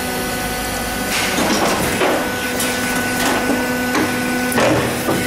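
Injection moulding machine running with a steady hum from its hydraulic drive. From about a second in comes a series of knocks and rushing noises as the mould closes for the next shot.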